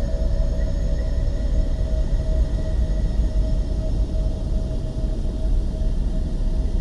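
A steady deep rumble with a held mid-pitched hum over it, unchanging and without any strokes or breaks.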